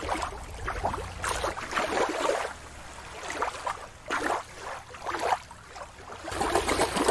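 Water lapping and splashing in irregular surges.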